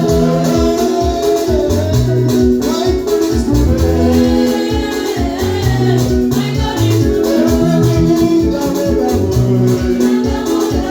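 Upbeat praise music with a steady beat, a moving bass line and sustained chords, with a voice singing the melody over it.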